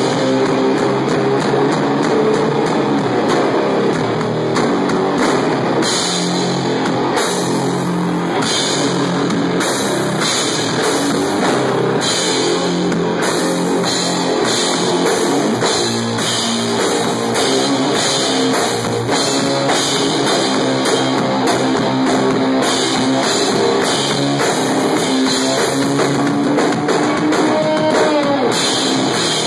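Live heavy rock from a drum-and-electric-guitar duo: an electric guitar played loud through an amplifier over a full drum kit, with cymbals struck again and again, recorded on a phone.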